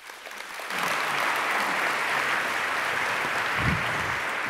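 Audience applauding, swelling within the first second and then holding steady.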